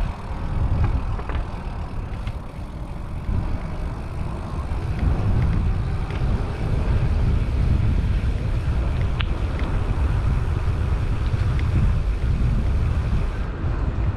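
Wind buffeting the microphone over the low rumble of a Diamondback Haanjo gravel bike's tyres rolling along a boardwalk and then a gravel trail, with a few faint clicks.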